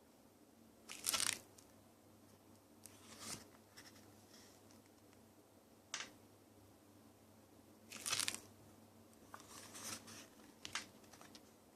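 Album packaging being handled: several short paper rustles and crinkles, with a sharp click about six seconds in.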